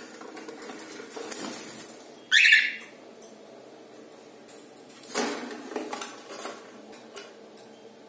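A cockatiel gives one short, loud squawk about two seconds in. Around it, light scratching and tapping of claws on the wooden nest box and cage wire, with a louder burst of scrabbling about five seconds in.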